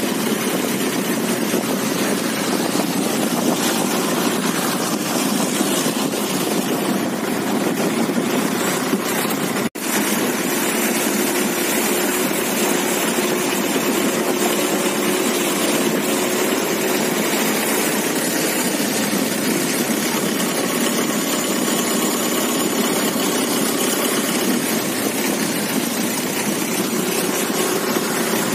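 Boat engine running steadily under a constant rushing noise. The sound cuts out for an instant about ten seconds in.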